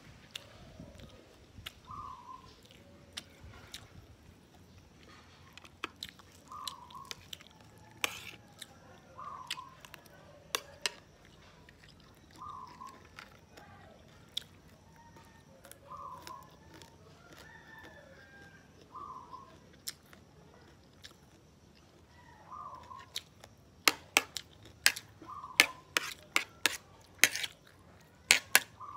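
Close chewing of dried fish and rice, with a bird repeating a short falling call every few seconds. Near the end comes a quick run of loud, sharp clicks as a metal spoon scrapes and taps the plate.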